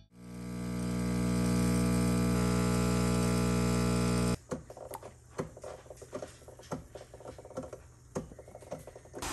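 A steady electric hum, like an appliance motor, that fades in, runs for about four seconds and cuts off suddenly, followed by scattered light clicks and knocks.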